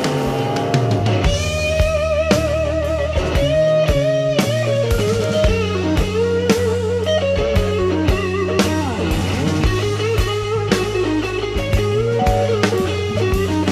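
Background music: a guitar lead of wavering, bent held notes over steady bass and a drum beat.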